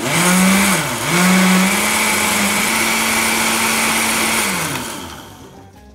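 Countertop blender running at full speed, pureeing pennywort leaves and water into juice. The motor starts abruptly, its pitch dips once about a second in and recovers, then holds steady before winding down and stopping near the end.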